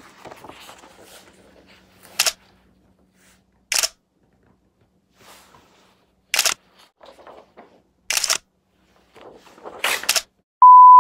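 Camera shutter clicks, five in all, one to two seconds apart. Near the end a loud steady beep tone cuts in.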